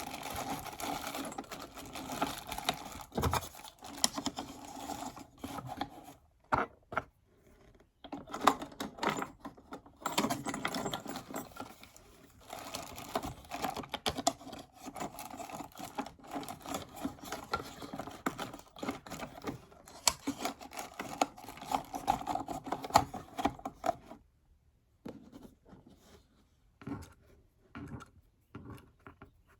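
1895 hand-cranked sewing machine running, a fast clatter of needle and mechanism over a steady whir. It stops for a couple of seconds about six seconds in, runs again, and stops for good near the end, leaving a few scattered clicks.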